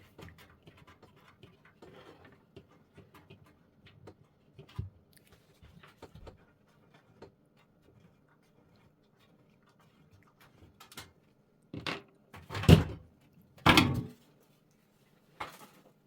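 Light clicks and taps of hands working on a PC case, then about twelve seconds in a few louder thumps and scrapes of the metal side panel being taken off.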